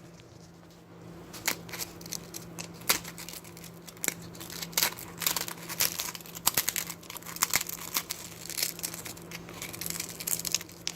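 An ice cream cone being crushed and crumbled by hand, a run of irregular crackles and snaps that starts about a second and a half in.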